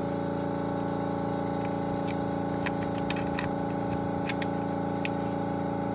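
A steady background machine hum, with a few light clicks and taps as a funnel is worked into the gear oil filler hole.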